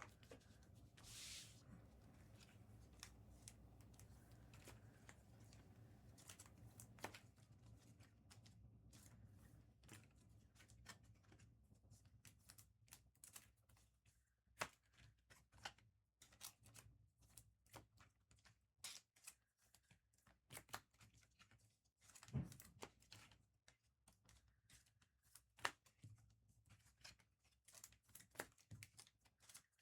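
Faint handling of trading cards: scattered soft clicks, slides and scrapes of cards and packaging being moved and stacked, over a quiet low room hum.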